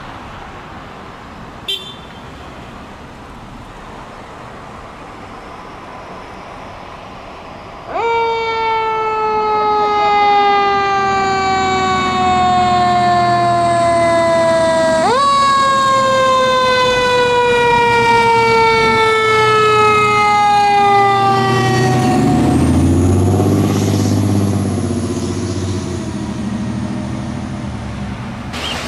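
Tower ladder fire truck responding, sounding its air horn in two long blasts whose pitch sags as each is held: the first starts suddenly about eight seconds in and the second comes at about fifteen seconds. A siren sweeps up and down over the horn, and the truck's engine rumble swells as it passes near the end. Light road traffic is heard before the horn.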